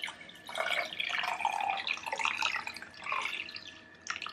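Water being poured into a glass vase holding monstera cuttings, trickling and splashing unevenly, with a short knock about four seconds in.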